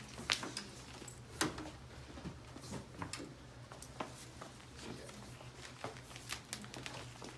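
Irregular light clicks, taps and knocks of things being handled, over a faint steady low hum.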